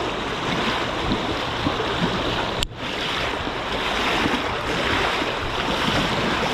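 Shallow river water rushing over riffles and rocks, mixed with the splashing of a person wading through it.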